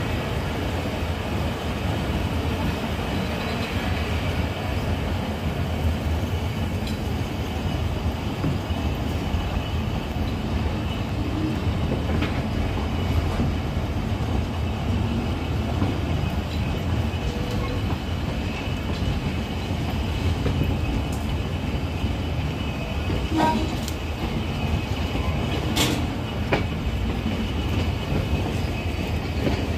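Passenger train rolling slowly through the station, heard from aboard: a steady low rumble with a few sharp clicks of the wheels over the rails in the second half.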